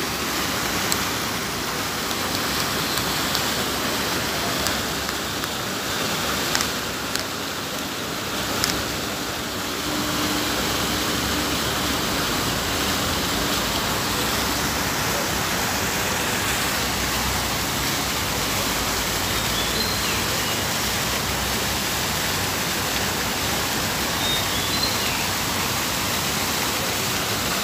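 Many vertical fountain jets splashing into a shallow pool, making a steady, even rush of falling water.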